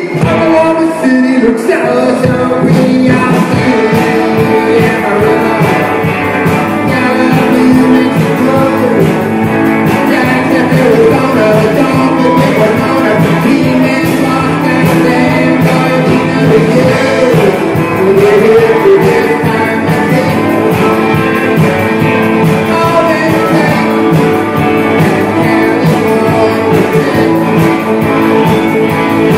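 Rock and roll band playing, with a singer and guitar.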